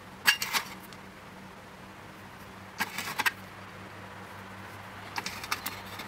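Small metallic clicks and clinks of brass lock pins and tweezers being handled while pinning up a padlock's key plug, in three short clusters: just after the start, around three seconds in, and near the end.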